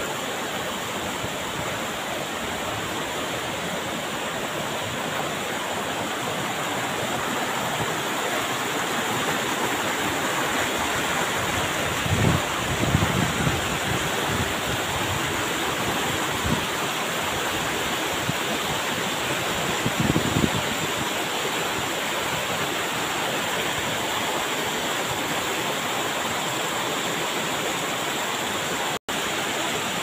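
Fast mountain stream rushing over boulders, with a waterfall close behind: a steady, unbroken rush of water. A few low thumps break in about twelve and twenty seconds in, and the sound cuts out for an instant near the end.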